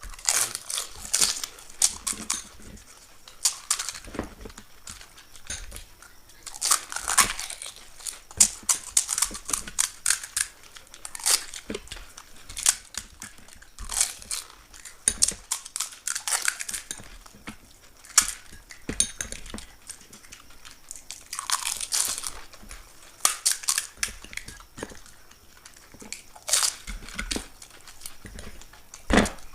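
Crisp fuchka (pani puri) shells filled with ghugni crunching and crackling as they are bitten and chewed quickly, in irregular clusters of crackles.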